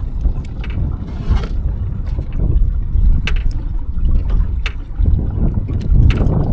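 Small boat on the water: a steady low rumble with scattered knocks, clicks and scrapes, like fishing gear and hands working on the boat.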